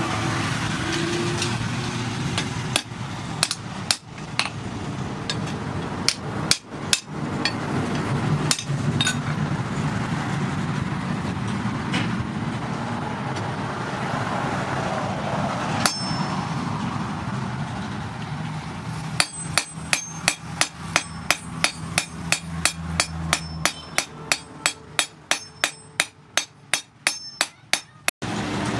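Hand hammer striking red-hot rebar on a small stake anvil, each blow with a short metallic ring. There are a few scattered blows in the first third, then a steady run of blows, about three a second, from about two-thirds of the way through, over a steady rushing background noise.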